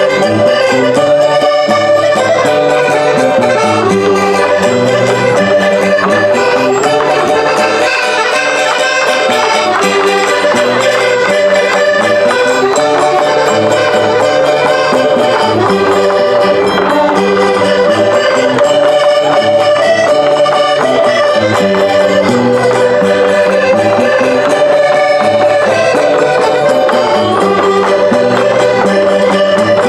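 Portuguese folk band from the Minho, led by accordion with light percussion, playing a vira, a lively dance tune, steadily and without a break.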